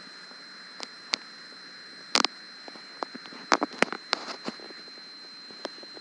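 Handling noise on a hand-held camera: scattered sharp clicks and knocks, a quick cluster about two seconds in and several more a second and a half later, over a steady faint high whine and hiss.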